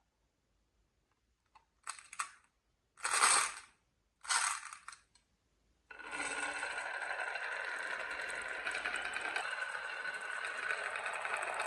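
Glass marbles clattering in three short bursts on a wooden marble run, then, about six seconds in, a continuous dense rattle of many marbles rolling along the wooden track.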